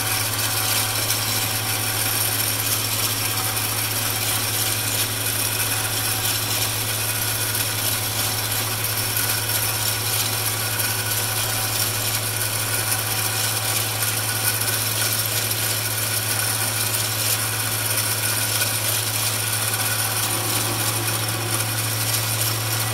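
MX-210V 8x16 benchtop metal lathe running steadily with a constant hum while a turning tool cuts along a spinning aluminum bar, throwing off stringy chips.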